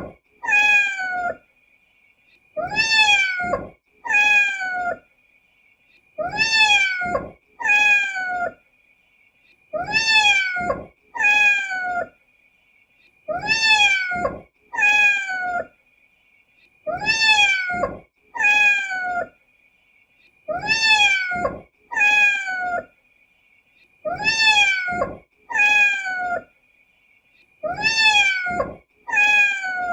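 A kitten meowing in pairs of short calls, each falling in pitch, with a pair about every three and a half seconds.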